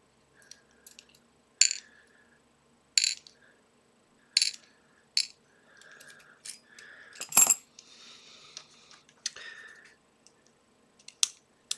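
Small metal lock parts, such as the pins from a five-pin lock, clinking one after another onto a hard work surface as the lock is taken apart. There are about half a dozen sharp, ringing clinks, the loudest about seven seconds in, with some soft scraping of parts being handled.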